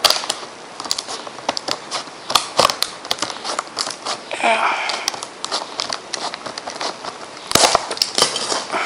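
Scissors cutting through the top of a cable's retail packaging, with the packaging crackling and crinkling and many short sharp clicks.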